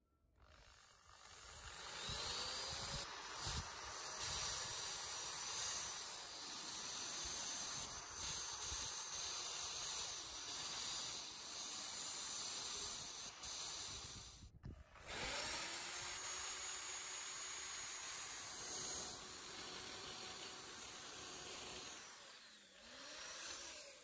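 Handheld rotary tool spinning a small wire cup brush against the brass body of a coffee grinder, a steady scratchy hiss. The motor's pitch rises as it spins up, it stops sharply about halfway through and starts up again, and winds down near the end.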